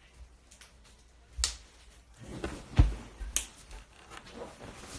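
A few sharp clicks and knocks with soft rustling, the loudest a click with a low thump near the middle. These are handling noises from someone settling at a table close to the phone's microphone.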